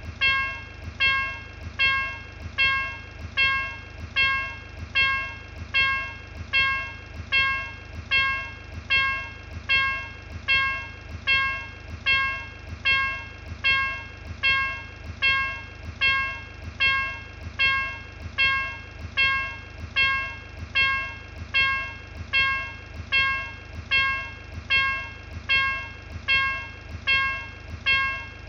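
Ray Teknik electronic level-crossing bell of a Turkish State Railways crossing, ringing steadily at about one stroke a second, each stroke a bright bell tone that dies away before the next, over a steady low hum.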